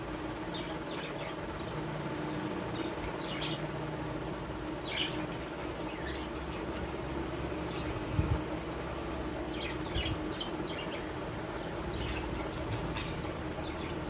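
Small pet parrots in a cage chirping in short, scattered bursts, with a steady hum underneath and a couple of low knocks about two-thirds of the way through.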